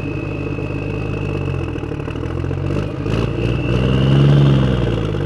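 Homemade toy tractor running: a small electric motor's steady high whine over an engine-like drone, which swells and bends up and back down in pitch about four seconds in.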